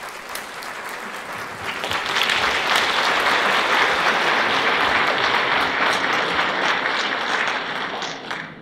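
Audience applauding in a theatre, the clapping swelling about two seconds in, holding steady, and dying away near the end.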